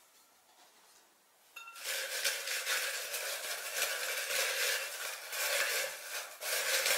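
Folded paper slips being stirred by hand inside a clear glass container: a crackly rustling with light clinks against the glass, starting about one and a half seconds in.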